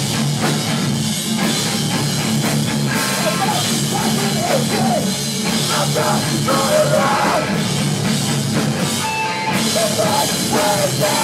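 Hardcore punk band playing live: distorted electric guitars, bass and a drum kit with cymbals, loud and continuous.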